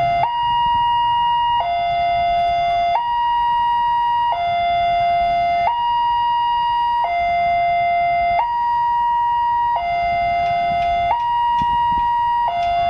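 Railway level-crossing warning alarm from the horn loudspeaker on the crossing's signal post: an electronic two-tone signal switching back and forth between a high and a low tone about every 1.3 seconds, sounding with the barrier down as a train approaches. Motorcycle engines idle underneath.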